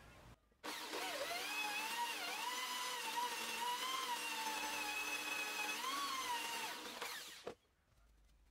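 Bench drill press running, its twist bit boring into a steel bar held in a vise: a steady whine whose pitch wavers and dips a couple of times, over a hiss of cutting. The drill stops about seven seconds in.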